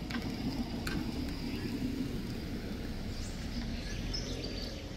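Outdoor street ambience: a steady low rumble with a few short, high bird chirps in the second half.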